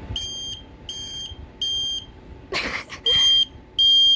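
Smoke alarm sounding its high-pitched beep: three beeps, a pause, then two more, the pattern of a smoke alarm's test or alarm signal. A brief hissy noise comes in the pause.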